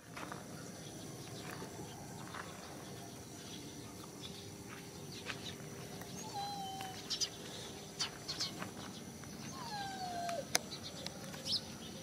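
Faint rural outdoor ambience with a steady low hum, a few short falling animal calls, and scattered sharp clicks, the longest call just before ten seconds in.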